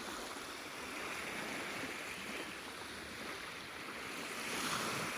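Small sea waves washing on the shore in a steady hiss, swelling briefly near the end.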